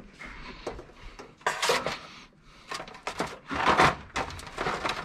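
Handling noise from a racing fuel cell's plastic jet pump assembly and its fuel hoses as they are moved about and set down on a steel bench: irregular rustling and scraping with light knocks. The loudest bursts come about a second and a half in and again near three-quarters of the way through.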